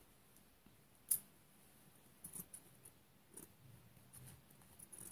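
Faint, scattered snips of fabric scissors trimming excess batting close to a seam. The sharpest cut comes about a second in, with a few lighter snips and rustles after it.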